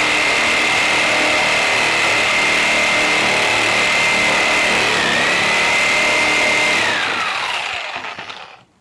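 Electric saw running at full speed with a steady high whine. The pitch dips briefly about five seconds in as the blade takes load, then recovers. Near the end the saw is switched off and the whine falls away as the blade spins down.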